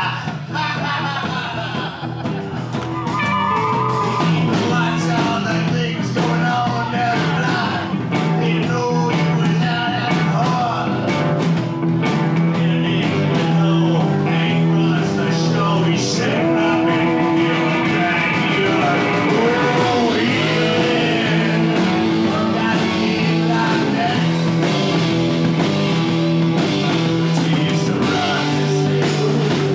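Live folk-rock band playing loud and full: strummed acoustic guitar and drums with cymbals, with voices singing over them. The band swells up about three seconds in and then holds steady.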